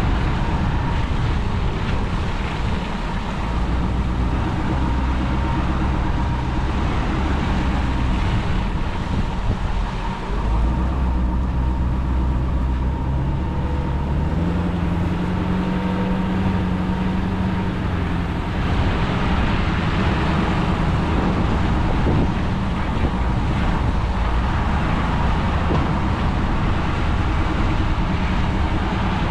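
Truck engine running with road noise. Its note steps up around the middle, and a thin steady whine runs alongside until about two-thirds through.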